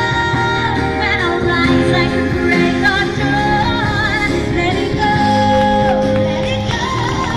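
Song with a singing voice over instrumental backing. The voice holds notes with a wavering vibrato.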